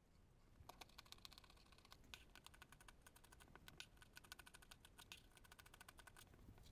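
Faint, quick, uneven clicking and light scraping of hand work on fabric at a sewing table, such as marking or cutting the curved bottom of a bag panel. It starts a little under a second in and stops shortly before the end.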